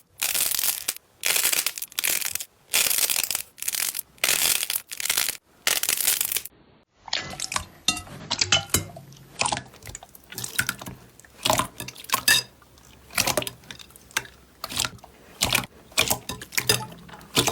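Slime being worked by hand: about eight loud wet squelches at a steady pace over the first six seconds, then after a short pause a denser run of sticky crackles and small pops.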